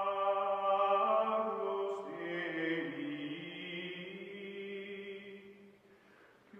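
Background music of long, held chant-like tones, shifting pitch a couple of times and fading out near the end.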